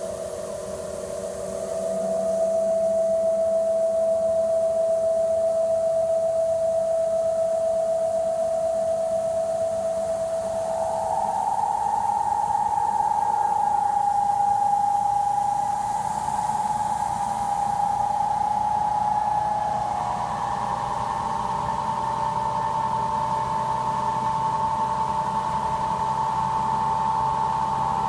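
Krantz 120 cm extractor running on a test run: a steady machine whine over a light hiss. The whine steps up in pitch about ten seconds in, again around twenty seconds, and once more near the end as the spin speed is raised in stages.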